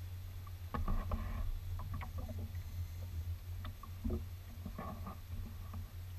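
Small waves slapping and splashing against a kayak's hull, with scattered knocks, over a steady low rumble. The splashes bunch up about a second in and again around four to five seconds in.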